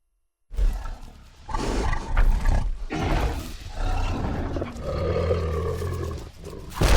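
Giganotosaurus roar sound effect, designed from animal recordings that include stallion screams, a lion and alligator bellows: one long roaring growl of about six seconds with a deep rumble beneath it, starting about half a second in. A short, loud burst of another call starts just at the end.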